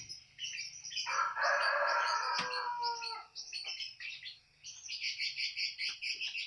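Small birds chirping rapidly and continuously. About a second in, a louder rushing noise lasts roughly two seconds.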